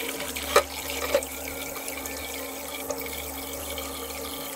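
Cold water running from a kitchen tap into a pot of sushi rice being washed, with two light knocks about half a second and a second in.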